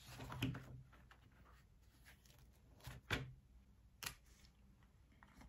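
Quiet handling of a spiral notebook and pen on a table: a few soft knocks as the notebook is set down and handled, then one sharp click about four seconds in as the pen is opened.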